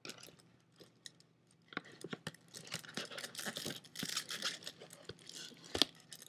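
Hands rummaging in a cardboard lens box: faint rustling and crinkling of cardboard and plastic packaging with scattered small clicks, starting about a second and a half in, and a sharper knock near the end.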